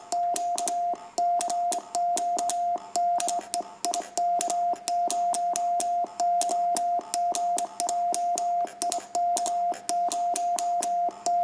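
Morse code sent by hand on an N2DAN Mercury paddle worked as a sideswiper, its lever swung from side to side: a steady single-pitch sidetone beep keyed on and off in dots and dashes, with sharp clicks at the keying.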